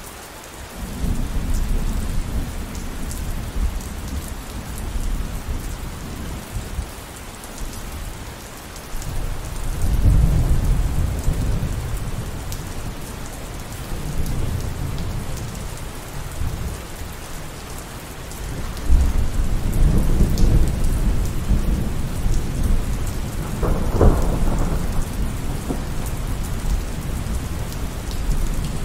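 Steady rain with repeated low rolls of thunder: rumbles swell about a second in, around ten seconds in and again midway. A longer, louder roll fills the last third, with a sharper crack near its peak.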